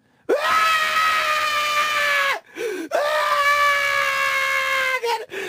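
A person's voice letting out two long, loud held cries, each about two seconds, on a nearly steady high pitch that sags slightly at the end, with a short break between them.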